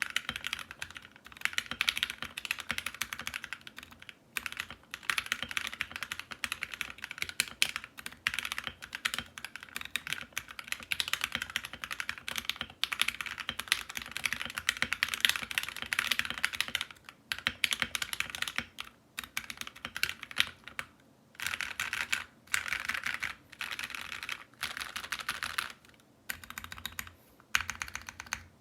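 Typing on a Drop Alt Low-Profile mechanical keyboard with lubed Gateron Ink Black V2 linear switches and Akko ASA keycaps. Fast runs of key clacks are broken by brief pauses.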